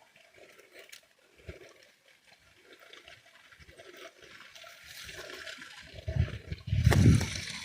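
Running, gurgling water, with a loud low rumble swelling in about six seconds in.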